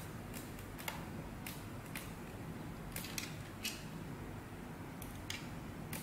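Light, irregular metal clicks and ticks of an Allen key working a screw on the top plate of a key cutting machine, over a low steady background hum.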